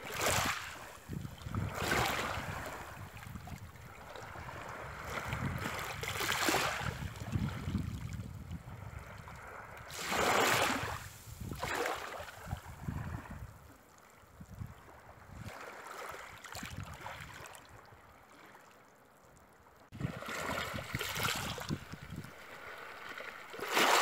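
Small waves washing in over shallow water at the shore, the sound of water swelling and falling away every few seconds.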